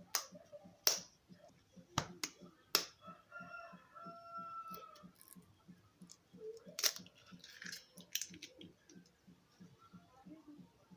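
An egg tapped against a bowl and its shell cracked open: a few sharp taps and clicks in the first three seconds and another about seven seconds in. A faint drawn-out call sounds in the background midway.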